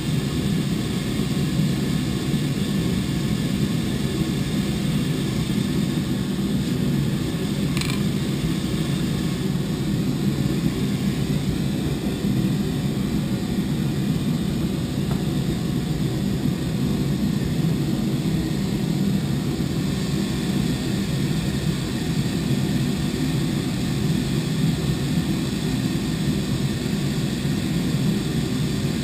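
Forge running with a steady, even whooshing hum that does not change, as a blade heats. One brief click comes about eight seconds in.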